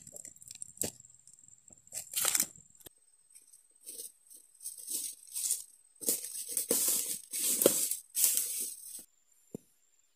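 Oil palm fronds being cut and pulled down with a long-poled harvesting sickle (egrek): a string of irregular rustling, tearing bursts of leaves, thickest and loudest in the second half, cutting off suddenly near the end.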